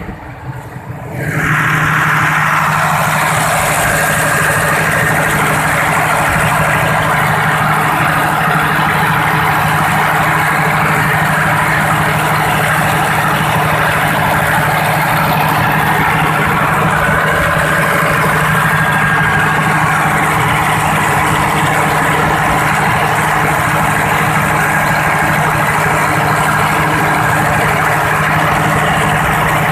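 Nissan turbo-diesel engine of a 125 kVA generator set running steadily at constant speed, a level machine drone with a steady low hum. It grows much louder about a second in, then holds even.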